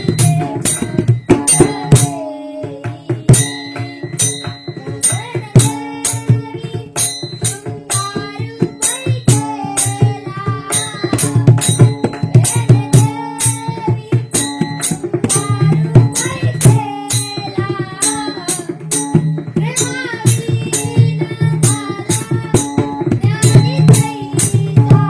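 Warkari devotional singing: a voice sings over a hand drum and small hand cymbals struck in a steady, fast rhythm.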